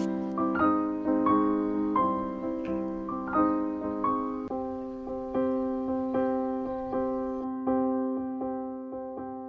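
Background piano music: gentle notes played one after another at a slow, even pace, each ringing out and fading.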